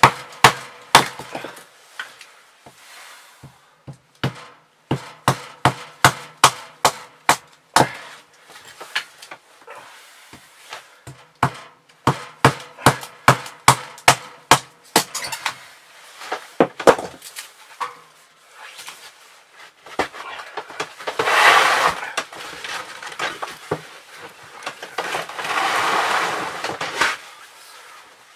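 Kindling being chopped with a small blade: rapid sharp strikes on wood, about three a second in runs of several. Near the end the strikes give way to a longer stretch of rustling.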